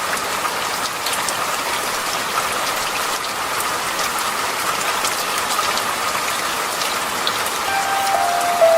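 Steady rainfall, an even hiss with scattered pattering drops. A few soft sustained music notes come in near the end.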